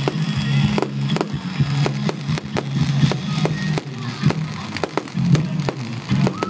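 Aerial fireworks bursting with many sharp cracks and pops in quick, irregular succession, with music playing underneath.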